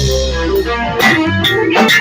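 A band playing live: guitar notes over a held bass note, with drum kit hits keeping the beat.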